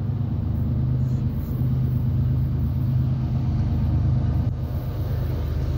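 Diesel locomotives of an approaching freight train running with a steady low engine drone.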